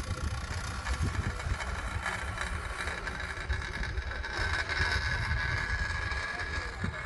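A motor running steadily with a low, fluttering rumble. A faint high whine comes in about halfway through.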